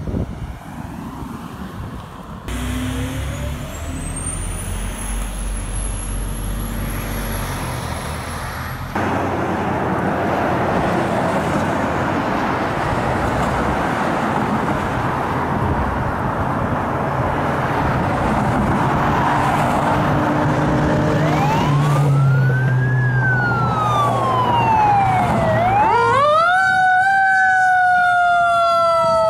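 Pierce Arrow XT fire engine's engine running as it drives past, across several spliced clips with sudden cuts. About two-thirds of the way through a siren starts wailing, rising and falling in pitch, and it is loud near the end.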